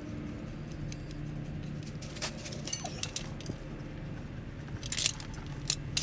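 Scattered metallic clinks and rattles of a scissor jack being handled and set down under the car, over a low steady hum.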